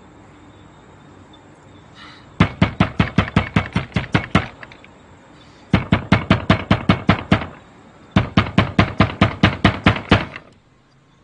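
An open hand banging rapidly on old wooden shop doors in three bursts of about a dozen strikes each, around six a second.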